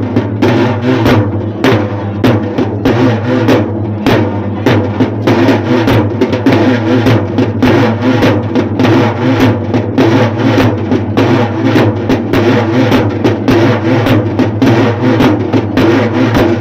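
Music with rhythmic drumming, about two or three drum strokes a second, over a steady low note.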